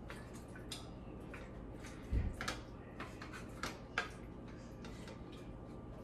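Wooden spatula stirring chicken pieces in a pot, giving scattered soft clicks and knocks against the pot. The loudest is a dull knock about two seconds in, followed by a few sharper clicks.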